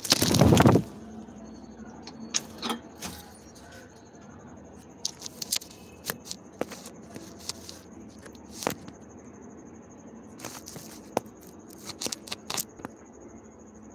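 A mobile phone falling and clattering onto the ground in a loud burst lasting under a second, followed by scattered knocks and scrapes as the phone is handled.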